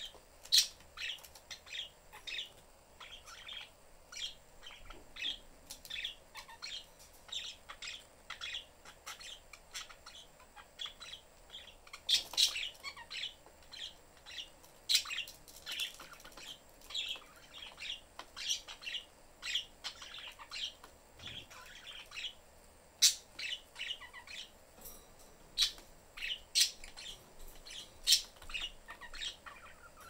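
Pet budgerigars (parakeets) chirping and chattering nonstop in quick short chirps, with a few louder, sharper calls scattered through.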